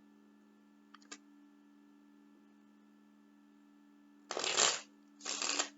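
Tarot cards being shuffled: a couple of light clicks about a second in, then two short, loud shuffling bursts about a second apart near the end.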